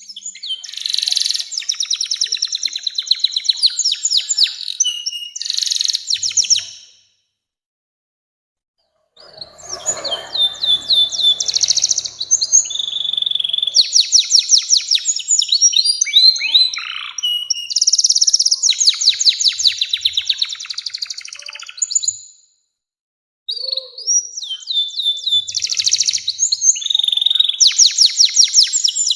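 Domestic canary singing long rolling song: rapid trills and chattering rolls with a few descending whistles. It comes in three long phrases broken by pauses of about two seconds and one second.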